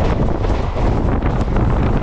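Wind buffeting the microphone held out of the open door of a moving passenger train, over the steady rumble of the coach running along the track.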